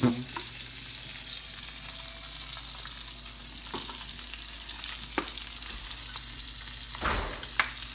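Burger grease frying in an electric skillet: a steady sizzling hiss, with a few short knocks and clicks, the loudest about seven seconds in.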